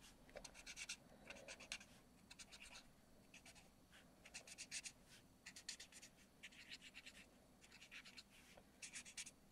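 Stampin' Blends alcohol marker tip scribbling on cardstock: faint, quick scratching strokes in short runs of about a second, with brief pauses between.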